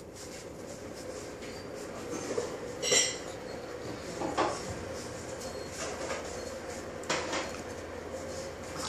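Dishes and cups clinking and knocking as they are handled, over a steady hum. The sharpest clink comes about three seconds in, with a few lighter knocks after it.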